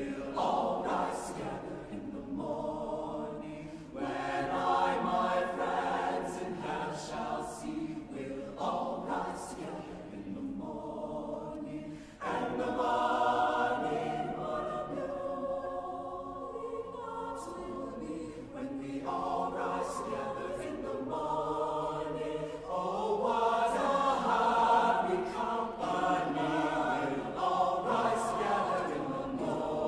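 Mixed high-school chamber choir singing together in phrases, with a brief break in the sound about 12 seconds in and the fullest, loudest singing in the last third.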